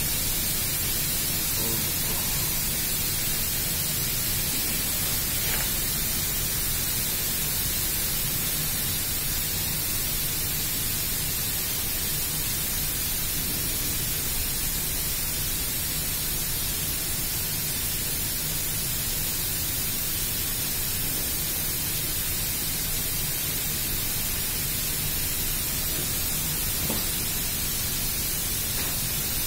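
Steady hiss at an even level, strongest in the high frequencies, with two faint clicks, one about five seconds in and one near the end.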